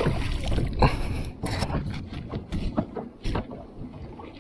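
A run of irregular knocks and taps against the hull of a plastic fishing kayak as things are handled on board.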